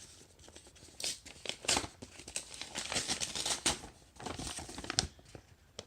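Paper crinkling and tearing as an envelope is handled and opened by hand, with a few light knocks.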